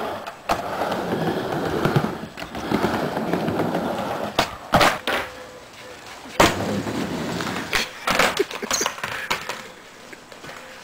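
Skateboard rolling on a backyard mini ramp surfaced with quarter-inch hardboard coated in spar urethane: a steady rolling rumble broken by sharp clacks of the board hitting the ramp, several in quick succession about four to five seconds in. It grows quieter near the end, with a few scattered knocks.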